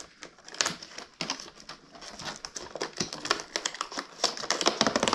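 Crinkling and rustling of packaging being handled, a dense run of small clicks and taps.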